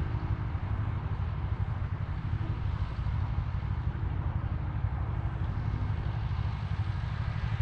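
Wind buffeting the microphone: a steady, fluttering low rumble with a faint outdoor hiss over it.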